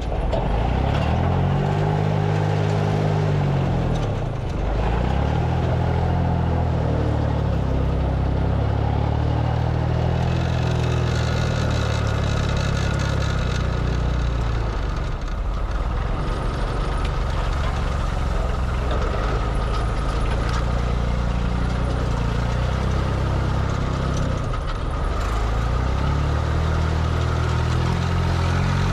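Heavy vehicle engine running. Its pitch dips and rises again a couple of seconds in, then it holds a steady drone.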